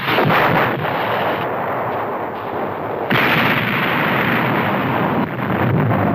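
Battle noise: dense, continuous gunfire and explosions, with a fresh louder burst about three seconds in.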